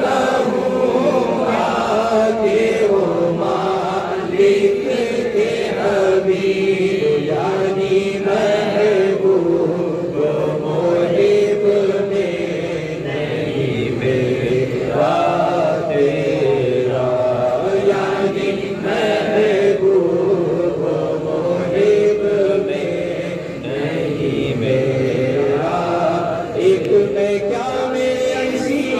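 A man singing an Urdu naat unaccompanied into a microphone. He chants in long, bending held lines, with short pauses between phrases.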